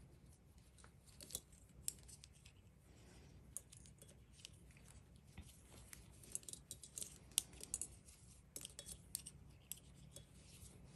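Metal knitting needles clicking and tapping against each other as knit stitches are worked. The clicks come faint and irregular and bunch together in the second half.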